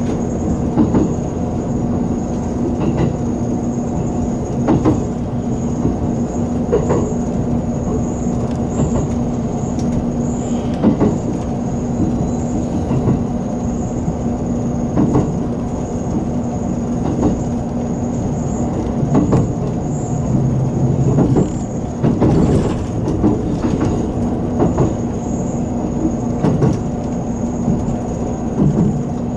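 JR Kyushu 783 series electric train running at speed, heard from inside the leading car. It makes a steady running rumble with a constant low hum and a faint high whine, and clicks from the wheels every second or two.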